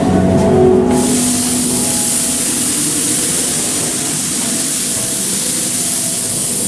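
A loud, steady hiss like venting steam sets in about a second in and continues. Faint sustained musical tones from the attraction's soundtrack sound beneath it.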